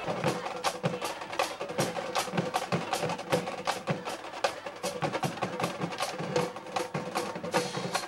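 Marching band drumline playing a fast cadence: sharp snare and stick-click strikes several times a second over lower drum hits.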